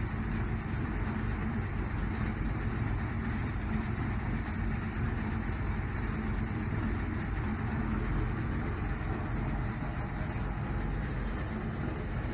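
A vehicle engine running steadily at idle, an even low rumble with no revving.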